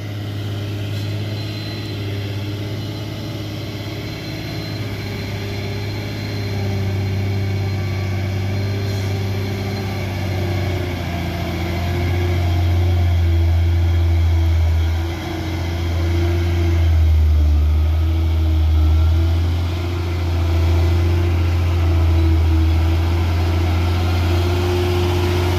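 Hino Ranger FM 260 JD truck's six-cylinder diesel engine pulling slowly at low revs over a muddy dirt road. It gets louder as the truck comes close, about halfway through, and the engine note shifts a few times.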